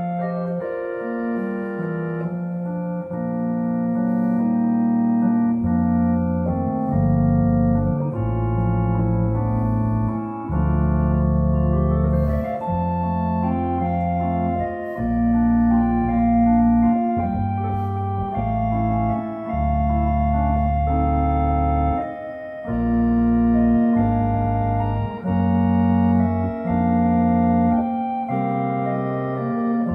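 Two-manual home organ playing a slow piece in sustained chords over a deep bass line that changes note every second or two.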